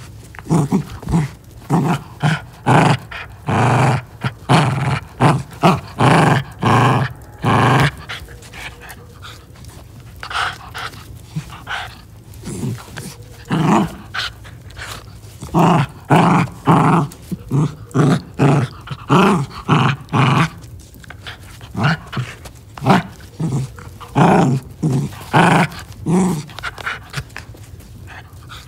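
Finnish Lapphund puppy play-growling as it tussles with a hand, in runs of short growls separated by brief pauses.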